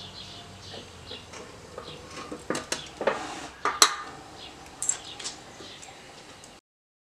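Steel parts and small hardware clinking and clanking as the press's diamond-plate foot pedal is set in place and bolts are handled. The clanks come in a burst, with the loudest just before four seconds in, and a few lighter clinks about a second later.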